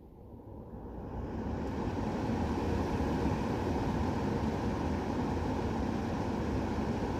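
Air purifier fan spinning up, its rushing whoosh of air rising over the first two seconds and then holding steady.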